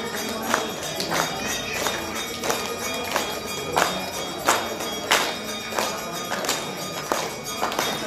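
Hindu temple aarti music: sharp percussive strikes at an even pace of about three every two seconds, over a steady ringing tone.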